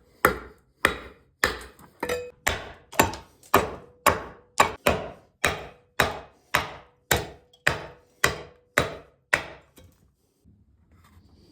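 A hand tool strikes an oak barrel head in a steady rhythm, about two blows a second, as the head is cut by hand. The blows stop near the end.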